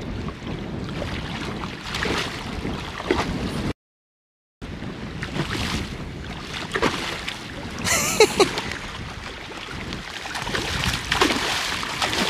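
Shallow saltwater sloshing and splashing around wading legs, with wind buffeting the microphone. The sound cuts out to silence for about a second near the four-second mark, and there is a brief louder moment about eight seconds in.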